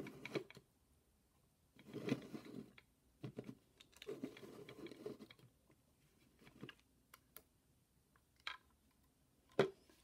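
A Lego brick model turned by hand on a Lego baseplate: plastic bricks scraping and clicking against the studs in several short bursts, with a sharper click near the end.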